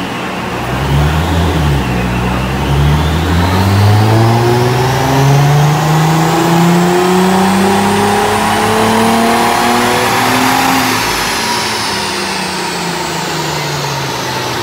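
Car engine pulling under load, its revs climbing slowly and steadily for about nine seconds and then dropping as it backs off, typical of a full-throttle run on a rolling-road dyno.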